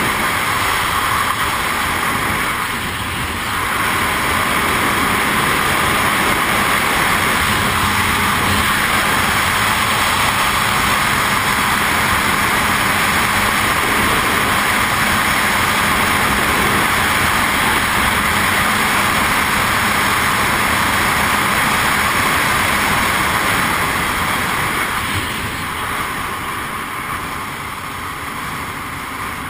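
Jet ski under way at speed: a steady rush of engine, water and wind noise, growing quieter over the last few seconds.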